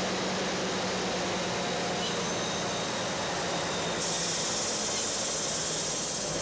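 Semi-truck engine running steadily at low speed as it hauls a loaded flatbed trailer, with a steady low hum; a higher hiss joins about four seconds in.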